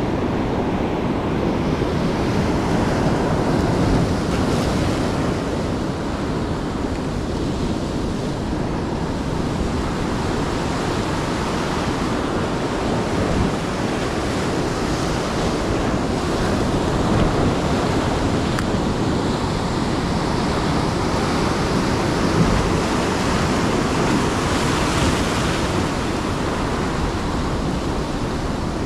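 Ocean surf washing steadily onto the beach, with wind on the microphone.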